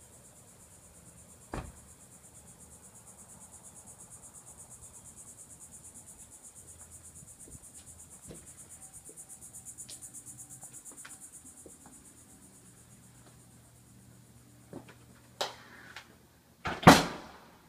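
Insects trilling steadily at a high pitch with a fast pulse, fading out about two-thirds of the way through. Near the end come a few sharp knocks, the last one the loudest.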